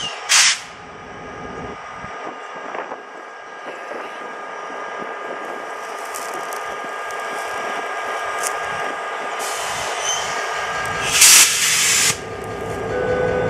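Illinois Central diesel locomotive 9571 running at low speed beside a string of freight cars, its engine growing louder as it comes close. About eleven seconds in there is a loud hiss of air lasting about a second, typical of the train's air brakes during a brake test.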